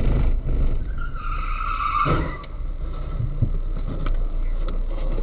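A car's tyres squealing in a skid for about a second, ending in a short thump, over the steady low rumble of engine and road noise heard inside a car.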